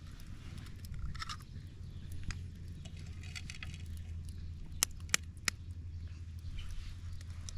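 Metal spoon tapping an eggshell to crack it: three sharp clicks in quick succession about five seconds in, after some lighter clicks and scrapes. A low steady rumble runs underneath.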